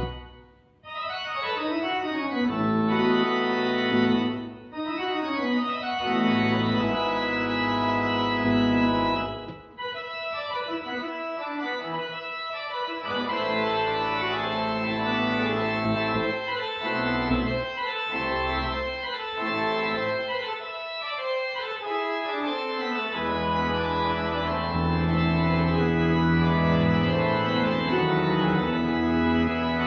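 Church pipe organ playing sustained chords on the manuals over a pedal bass line, with a brief break about a second in. The bass drops out for stretches in the middle, and a full low chord holds steadily through the last few seconds.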